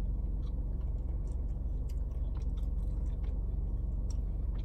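Close-miked chewing and small wet mouth clicks of someone eating fast food, over a steady low hum.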